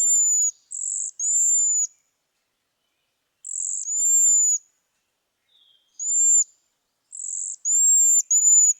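Cedar waxwings giving their soft, high-pitched calls: about nine thin, nearly level notes, some in quick pairs, with short pauses between them.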